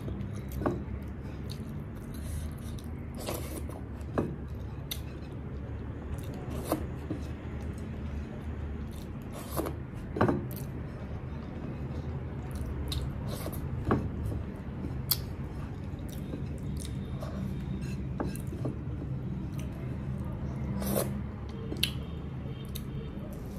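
Close-up eating sounds: rice and dal squished by fingers on a plate and food chewed, heard as scattered soft wet clicks and smacks over a low steady hum.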